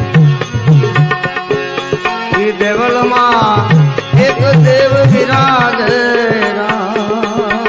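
Bhajan music with a tabla beat whose bass strokes bend in pitch, over held chords. From about two and a half seconds in, a melody with sliding, wavering notes takes the lead.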